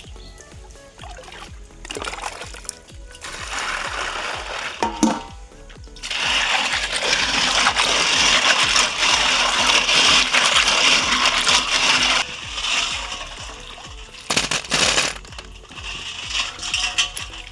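Background music with a steady low beat. About six seconds in, a loud hiss starts, runs for about six seconds, then stops.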